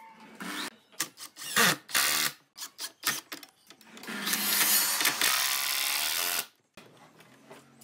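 Hitachi 18V cordless impact driver driving a screw into pine framing, running for a burst of about two and a half seconds from about four seconds in, then stopping abruptly. Before it there is a series of short clicks and knocks as the frames are clamped together.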